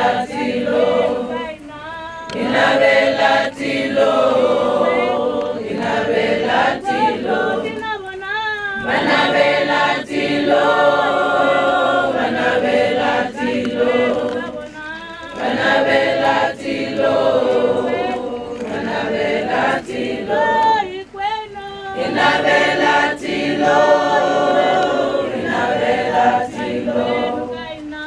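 A choir of mixed voices singing in harmony without instruments, in long phrases broken by short pauses for breath.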